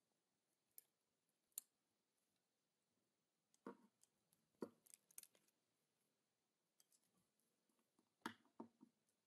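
Faint, scattered clicks and small knocks of two pairs of pliers gripping and twisting the branches of a plastic model tree armature, a few at a time with quiet gaps between.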